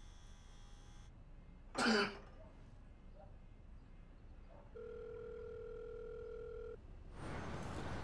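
A telephone ringback tone heard through the phone: one steady two-second ring, the ringing-line signal of a North American line, about five seconds in. Before it, about two seconds in, there is one brief loud burst like a cough. Near the end, street traffic noise comes in.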